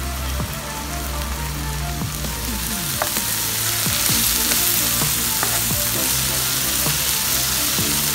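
Onion, tomato and spice masala sizzling in a hot nonstick frying pan as it is stirred with a wooden spoon, with the spoon's scrapes and knocks against the pan; the sizzle grows louder about four seconds in. Background music plays underneath.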